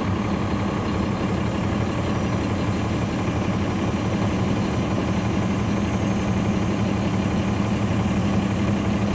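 Caterpillar C13 ACERT inline-six diesel engine of a 2009 NABI 416.15 transit bus running steadily, heard from on board the bus.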